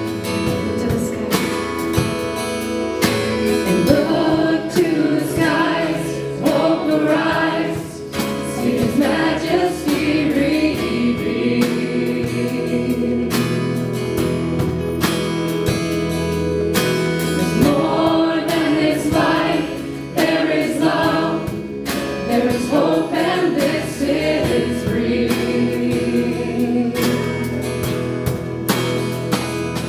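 Live worship band playing with a group of singers, with regular drum hits under the voices.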